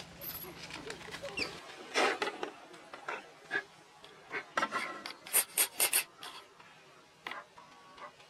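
Irregular rustling and scraping of dry leaves and brick paving as a mother macaque and her clinging newborn move about. A quick run of sharp clicks comes about five seconds in.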